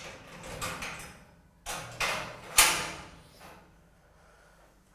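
Barred metal cell door being worked open: short scraping slides, then one sharp metallic clank about two and a half seconds in.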